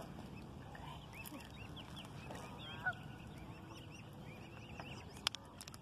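Mute swan cygnets peeping: a run of short, high, rising-and-falling calls, with one lower, louder call about three seconds in. A single sharp click a little after five seconds.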